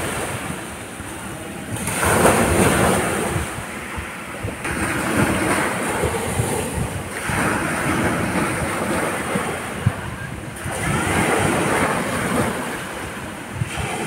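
Small sea waves breaking and washing up onto a beach, the surf rising and falling about every three seconds.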